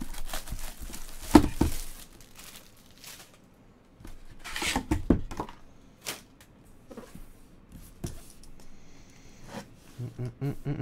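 Plastic shrink-wrap tearing and crinkling as it comes off a National Treasures trading-card box, then a few sharp clicks as the box's metal clasps are handled. A voice starts humming a tune near the end.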